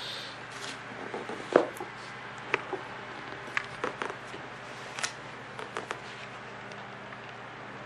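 A large bound paper register being handled and its pages opened: scattered light knocks, taps and paper rustles, the loudest about one and a half seconds in, over a low steady hum.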